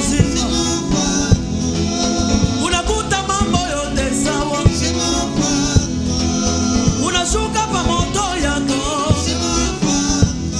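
Live gospel music: several male voices singing together over a band with drums and bass, a steady beat throughout.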